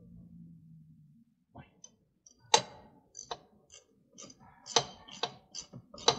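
Irregular sharp clicks and metallic taps of hand tools and filter parts being handled during a tractor transmission filter change, starting about a second and a half in and coming in uneven clusters.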